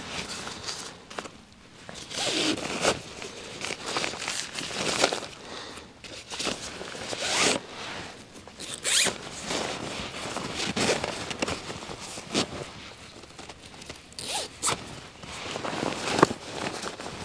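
Backpack being handled: a dozen or so short zipping and rustling scrapes of pack fabric and zippers, coming at irregular intervals.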